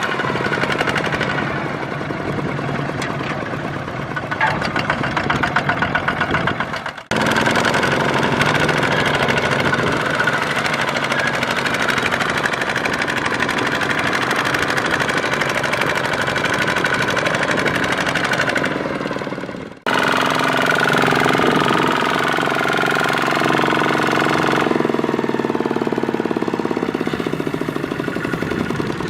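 Diesel engines of farm machinery running hard, a tractor and a rice harvester working in deep mud. The engine note shifts in pitch, and the sound cuts off and comes straight back twice.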